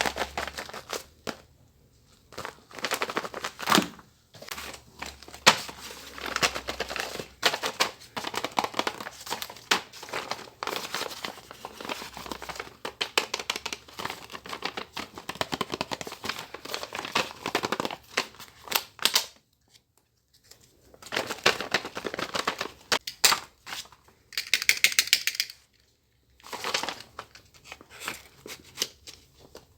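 Paper crinkling and rustling as handmade paper craft pieces are handled and unwrapped, in bursts with a few short pauses and some tearing or peeling sounds, including a brighter, higher-pitched stretch near the end.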